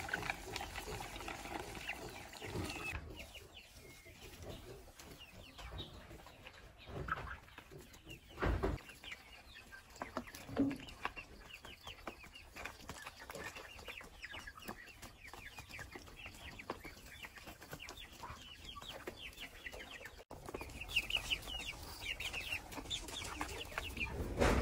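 Flock of chickens clucking softly while feeding, with many short, light ticks and a couple of dull thuds.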